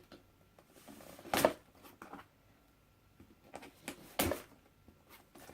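Handling noise from items and packaging being moved: scattered light clicks and rustles, with two louder brief bumps, one about a second and a half in and one about four seconds in.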